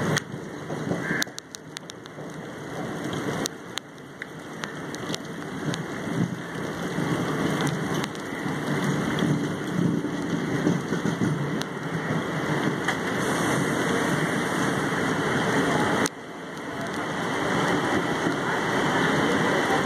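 Heavy monsoon rain pouring, heard from the open doorway of a suburban electric train as it rolls slowly through a station, with the train's running noise underneath. A few sharp clicks, and the noise dips suddenly near the end before building again.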